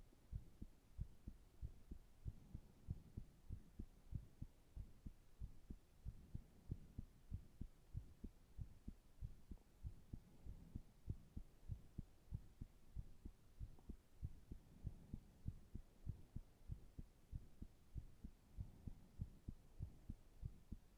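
Heart sounds at rest: a steady, regular beat of soft, low thumps.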